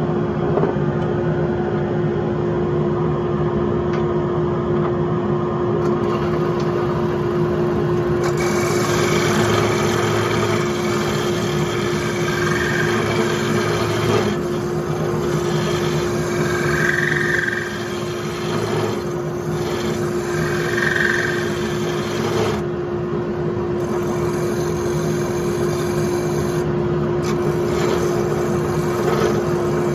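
A wood lathe motor runs with a steady hum while a gouge cuts into a spinning wooden dish. From about six seconds in there is a continuous scraping hiss of wood being cut, which eases off briefly a few times as the tool is repositioned.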